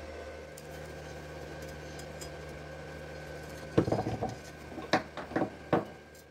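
Stick welding machine humming steadily with the arc off, then four or five sharp knocks in the last couple of seconds.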